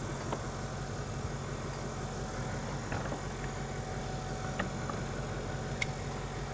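Steady low hum of an idling engine, with a few faint ticks on top.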